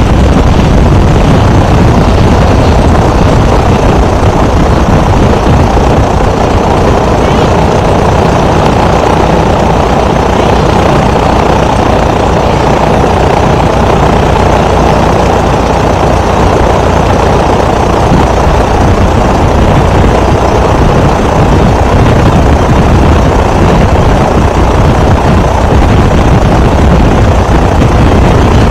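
Great Lakes biplane's piston engine and propeller running steadily, heard loud from a camera mounted on the airframe.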